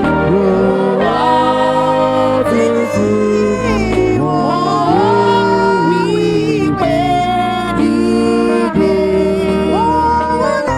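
Gospel music: a voice singing a gliding, held melody over live instrumental accompaniment with a steady bass line.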